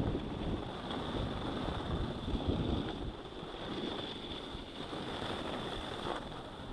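Wind rushing over an action camera's microphone while sliding down a groomed snow run at about 14 mph, with the hiss and scrape of packed snow underneath.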